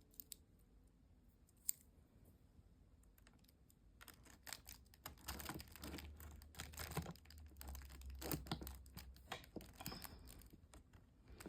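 Faint clicking and rattling of a mini chainsaw's chain and parts being handled as the chain is fitted onto the bar. A few separate clicks at first, then busier irregular clicking and rustling from about four seconds in, with a low rumble midway.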